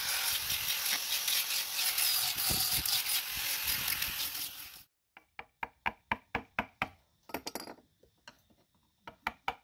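Angle grinder with a sanding disc running against carved wood, a loud steady hiss that stops about five seconds in. Then a run of sharp knocks, about three a second, as a carving chisel is driven into the wood.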